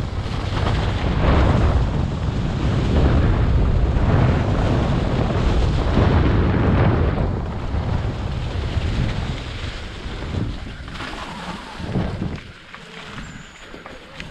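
Wind rushing over an action camera's microphone with the rumble of a downhill mountain bike's tyres over a dry, leaf-covered trail at speed, with knocks from bumps. The noise drops off sharply about twelve seconds in as the bike slows.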